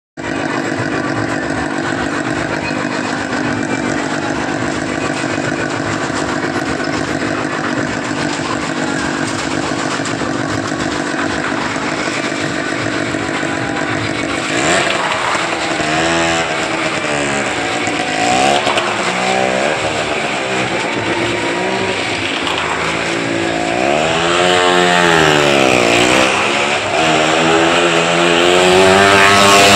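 Car and motorcycle engines running inside a wooden 'well of death' drum. A steady engine note at first, then from about halfway a repeated rise and fall in pitch every couple of seconds as the vehicles circle the wall, getting louder near the end.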